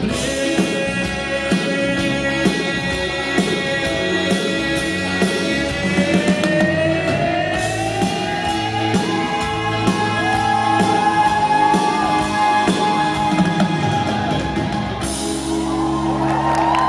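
Live band playing an instrumental passage with guitar and drum kit, a long sustained lead line slowly rising in pitch over the beat. The crowd starts cheering near the end.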